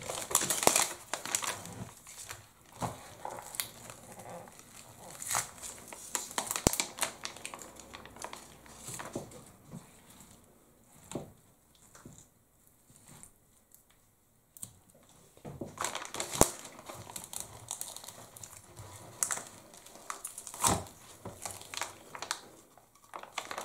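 Raw potato slices and vegetable pieces being pushed around by hand in a glass baking dish, in irregular clicks, knocks and rustles. It goes quieter for a few seconds in the middle, then the handling picks up again as a raw chicken leg is laid in among them.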